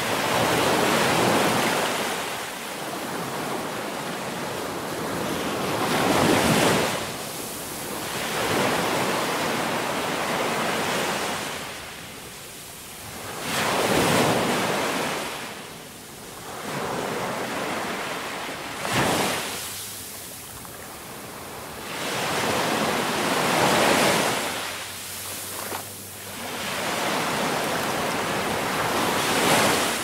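Ocean waves breaking and washing up a shore, the surf swelling and ebbing every few seconds.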